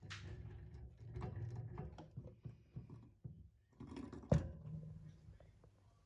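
Budgerigars moving about: faint scratching and clicking, with one sharp knock a little past four seconds in.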